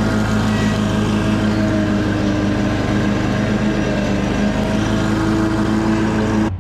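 Commercial lawn mower's engine running steadily while it mows grass.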